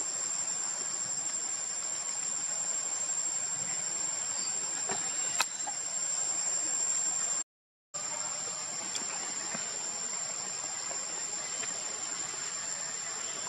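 Steady high-pitched insect drone over an even hiss, with a single sharp click about five seconds in. The sound cuts out completely for half a second a little past halfway.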